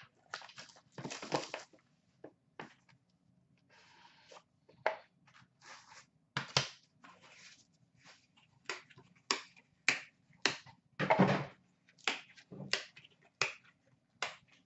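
A trading-card box being opened and its cards handled: cardboard rustling, and cards tapped and set down on a glass counter, making a series of sharp irregular clicks and knocks.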